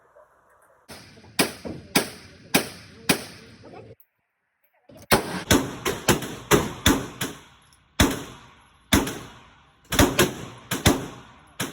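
Gunshots on a shooting range: a long, uneven run of sharp cracks, about twenty in all and often only a third of a second apart, each with a short echoing tail. About four seconds in there is a second of dead silence.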